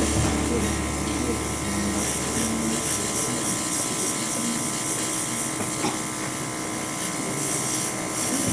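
Airbrush spraying paint in short hissing bursts over the steady noise and distant chatter of a busy hall, while background music fades out in the first few seconds.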